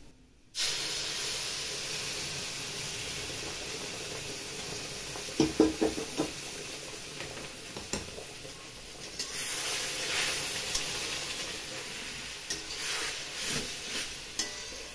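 Hot water hitting dry-roasted semolina in a hot steel kadhai, sizzling and hissing. The hiss starts abruptly about half a second in and holds steady. A metal spatula scrapes and knocks against the pan as the mixture is stirred, with a few sharp knocks around the middle and more stirring in the second half.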